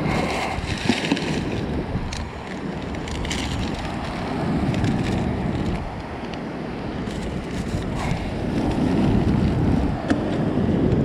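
Surf washing onto a beach, swelling and ebbing, with wind buffeting the microphone and a few short clicks.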